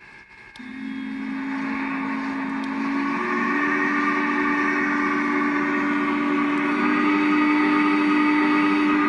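The sound system of an MTH One Gauge Big Boy model steam locomotive plays a long, held steam whistle through its upgraded speaker. The whistle starts about half a second in, steps slightly up in pitch about three seconds in, and swells louder over a steady hiss.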